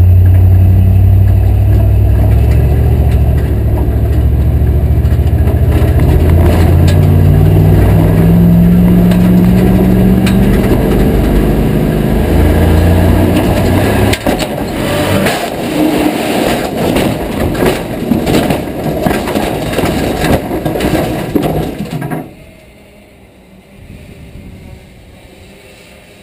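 Old Chevrolet Blazer's engine at full throttle, heard from inside the cab, its note rising as the truck accelerates. About 14 seconds in the engine note breaks off into a run of loud bangs, crashes and rattles as the truck hits the pipe ramp, goes airborne and lands on its tires. About 22 seconds in it all stops suddenly, leaving only a faint hum.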